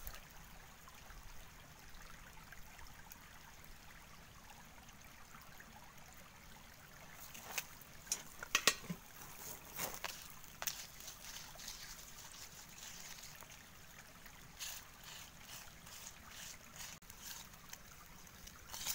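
Small stream trickling steadily over rocks, with a few sharp clicks and taps, mostly in the middle of the stretch and a few more later.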